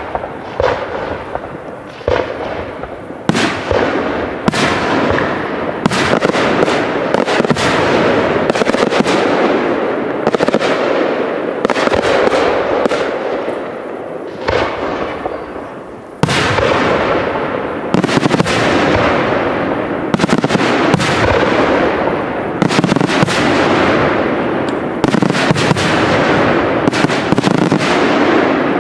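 Aerial fireworks shells bursting in rapid succession, sharp bangs one after another over a dense crackle. The bangs thin out briefly about halfway through, then start again with a sudden loud volley that runs on densely.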